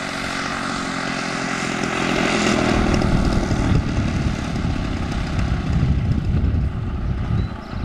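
The 50cc gasoline engine of an EF Extra 300 model airplane running at low throttle as the model lands, its drone easing slightly lower. About three seconds in, a louder, uneven low rumble takes over as the plane rolls out on the runway.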